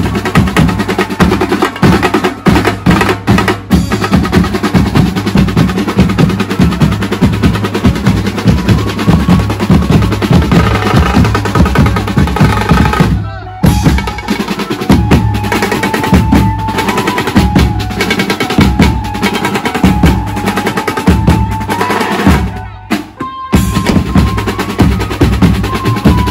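Live band drumming at full volume: a dense, fast drum rhythm, joined about halfway by a held melody line. The sound cuts out briefly twice.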